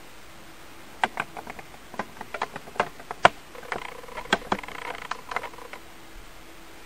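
Irregular clicks and taps, about a dozen over some five seconds, with a faint buzzy crackle mixed in near the middle.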